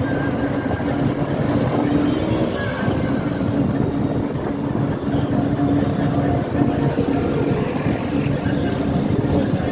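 Minibus engine and road noise heard from inside the moving bus: a steady, loud drone under a rush of tyre and wind noise.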